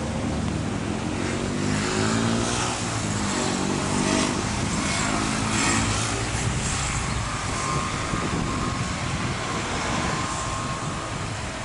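Diesel engines of an SNCF bimode AGC railcar (B 81801) working under power as the train pulls away, the engine note climbing in the first few seconds. A steady whine sits over the running sound later on.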